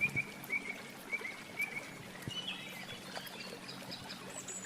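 Small bird calling: a run of short, repeated chirps about twice a second, then higher, quicker twittering notes in the second half.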